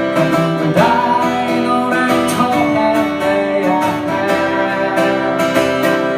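Live song with acoustic guitar strummed steadily between sung lines.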